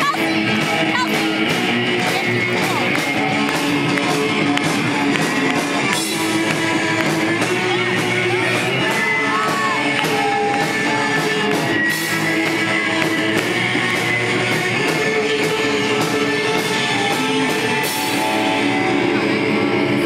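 Pop-punk band playing live through amplifiers: distorted electric guitars, bass and a drum kit keeping a fast, steady beat, with a singer's vocals over it.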